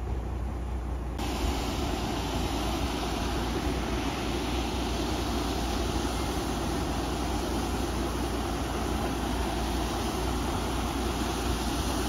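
Natural gas escaping under pressure from a damaged buried pipe: a steady rushing hiss that starts abruptly about a second in, over a low rumble.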